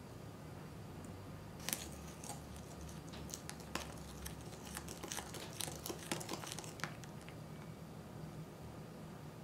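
A small spoon stirring a thick paste of cream powder and milk in a glass bowl, with a rapid run of clicks and scrapes against the glass from about two seconds in until about seven seconds in.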